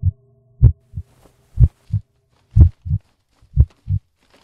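Heartbeat sound effect: deep, low double thumps, lub-dub, repeating about once a second.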